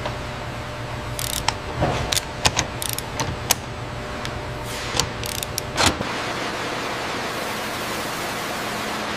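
Metal hand tools clicking and clinking against a steel fixture in irregular sharp taps over a steady low machine hum. About six seconds in, this gives way to a steady even hiss of shop ambience.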